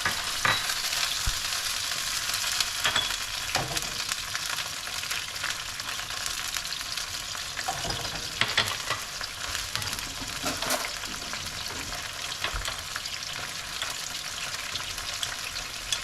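Vegetables sizzling in a hot pan as they are stir-fried, a steady hiss broken a few times by the brief knock or scrape of a cooking utensil.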